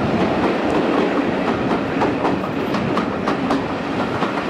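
Passenger train hauled by a Class 37 diesel locomotive, with its English Electric V12 engine, heard from an open carriage window while running at speed: a steady rumble of the engine and wheels, broken by frequent clicks and knocks of the wheels over the track.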